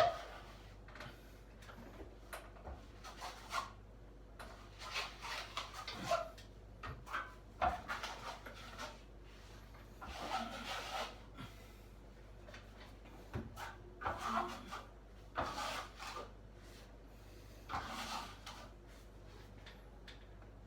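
Irregular scraping strokes, each under a second long, of a filling knife working joint filler, with a few light clicks between them.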